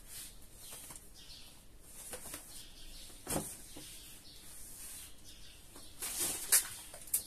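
Plastic shopping bags rustling and crinkling as groceries are rummaged through, louder near the end, with a single knock about three seconds in.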